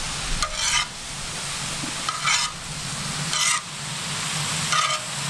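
Shredded beetroot and vegetables sizzling on a wide steel disc pan over a fire, with a steady frying hiss. A metal slotted skimmer scrapes across the pan about four times as the vegetables are stirred.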